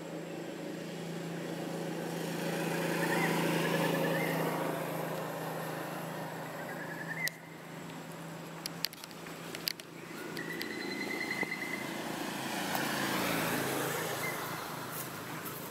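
Motor vehicles passing by twice, each growing louder and then fading, over a steady low hum, with a few sharp clicks in between.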